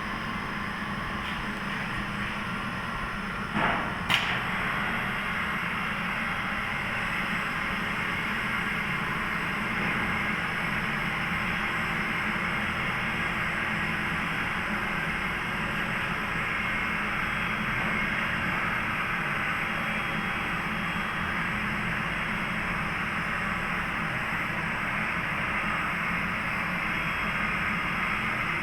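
Polyurethane gasket dispensing machine running with a steady mechanical whir, its tone holding level throughout. Two short sharp clicks come about four seconds in.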